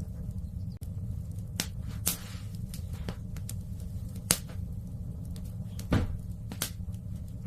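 Wood fire in a fireplace crackling, with scattered sharp pops over a steady low rumble; the loudest pops come about four and six seconds in.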